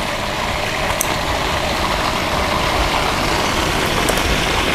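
Chicken thighs deep-frying in a wok of hot oil: a steady, loud sizzle with a few sharp pops of spattering oil. The oil is hot enough to spit, and the cook asks for the flame to be turned down.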